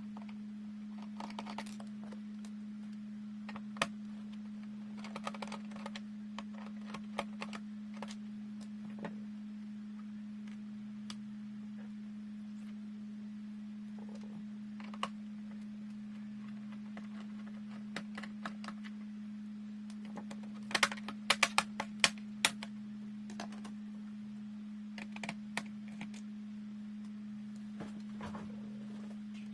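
Scattered clicks and taps of small plastic and metal laptop parts being handled during disassembly, with a quick run of sharp clicks about two-thirds of the way through, over a steady low hum.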